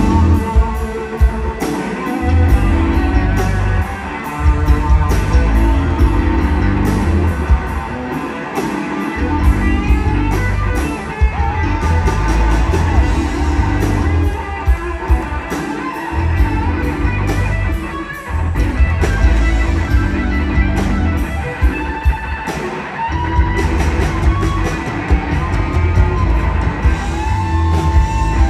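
Rock band playing live, loud, in an instrumental passage: an electric guitar leads with bending notes over bass, drums with cymbals, and piano.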